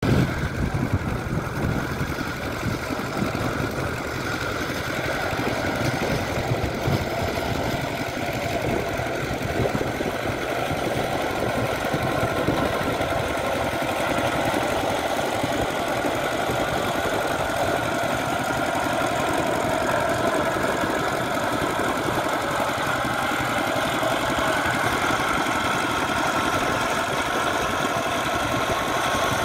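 The 12 HP single-cylinder diesel engine of a power tiller running steadily under load as it churns through flooded paddy mud, with a fast, continuous knocking beat.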